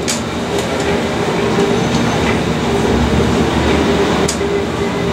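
Crane machinery running with a steady mechanical drone and hum while lowering a container, heard inside the operator's cab; the low rumble swells about three seconds in. Two sharp clicks, one right at the start and one about four seconds in.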